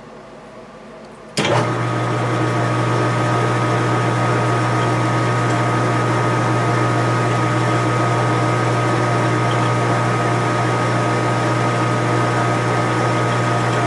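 A lathe's motor switches on about a second and a half in and then runs steadily, spinning a brass cartridge case for neck turning. It gives a low hum with a thin higher whine above it.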